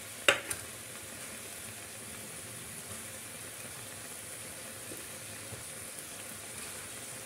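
Onion slices and tomato masala sizzling steadily in an iron karahi, an even frying hiss. A sharp tap about a third of a second in, with a lighter one just after, is the loudest thing.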